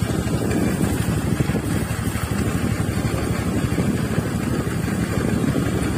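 Small scooter engine running under way, with wind rumbling steadily on the microphone.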